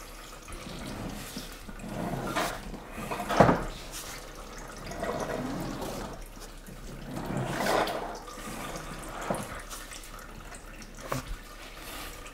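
Power steering fluid trickling and splashing from two disconnected hoses into a plastic tub, swelling several times as the front wheels are turned to pump the last fluid out of the steering system. A sharp knock about three and a half seconds in is the loudest moment.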